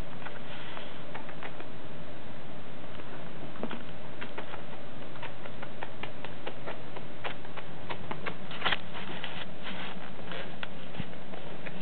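Irregular light clicking and scratching as a kitten moves about on an office chair, its claws catching on the chair's seat, with the loudest cluster of clicks about three-quarters of the way in. A steady low hum runs underneath.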